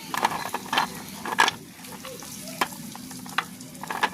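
Dry multani mitti (fuller's earth clay) crunching and crumbling, with a faint steady crackle and a few sharp snaps of lumps breaking.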